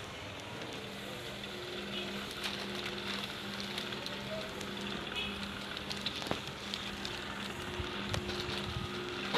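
Crackling, rustling handling noise as hanging clothes brush against the phone's microphone, with scattered small clicks over a faint steady low hum.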